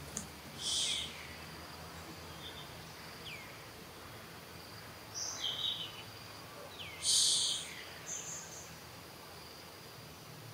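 Outdoor insect and bird ambience: a steady high insect drone, broken by about four short, high buzzing calls and a couple of faint falling chirps.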